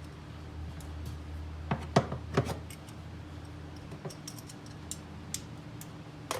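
Small metal-on-metal knocks and clinks of hand tools and a bolt: three sharper knocks about two seconds in, then a scatter of light, bright ticks, over a steady low hum.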